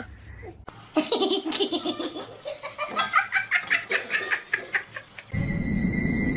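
A person laughing in a long run of quick, repeated bursts. About five seconds in it cuts off and a steady low rumble with thin, steady high tones takes over.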